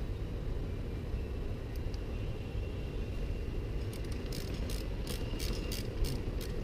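Steady low rumble, with a quick run of about ten light, sharp clicks in the last two and a half seconds.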